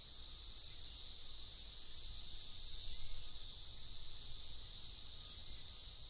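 Chorus of Brood X periodical cicadas: a steady, high-pitched drone with no breaks.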